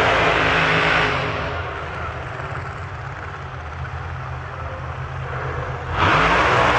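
Drag race car engines at full throttle. The sound is loud for about the first second, drops to a lower, steady engine note, then jumps back to full loudness suddenly about six seconds in.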